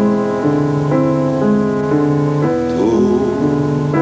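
Slow piano accompaniment: held chords and notes changing about every half second to a second.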